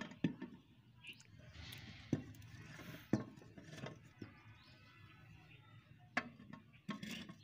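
Clear plastic water-filter housings handled and twisted into place on the filter head: scattered sharp plastic clicks and knocks, with a stretch of rubbing and scraping about two seconds in.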